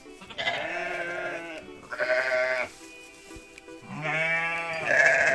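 Livestock bleating: three wavering, quavering bleats, the last one longest and loudest, over soft background music.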